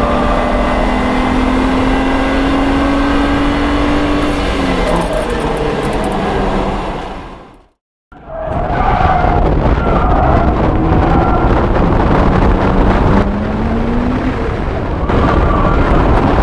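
BMW 135i's N54 twin-turbo straight-six, heard up close from under the hood, pulling hard with its note rising steadily for about four seconds. The sound then fades out to a moment of silence and comes back as car engine and road noise at track speed.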